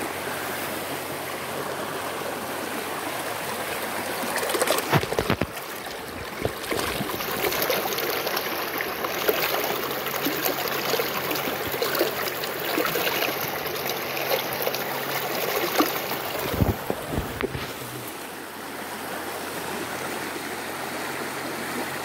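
Shallow creek running over rocks: a steady wash of rushing water, louder through the middle as it comes closest. There are a few sharp knocks, around five seconds in and again near the end of the louder stretch.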